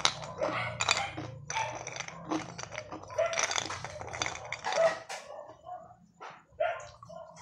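Ice cubes clinking and crunching as they are picked from a bowl and bitten, in a run of short sharp cracks, with a dog barking in short yips through the second half.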